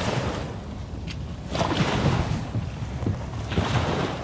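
Footsteps in beach sand and the wheels of a kayak cart rolling past over the sand, in several soft swells over a steady low rumble, with a short click about a second in.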